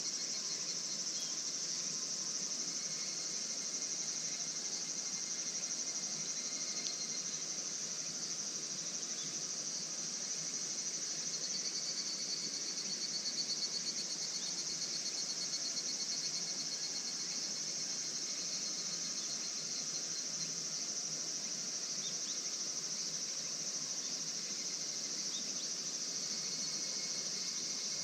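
Crickets and other insects chirring steadily in a continuous high-pitched chorus, with one pulsing trill growing louder about halfway through.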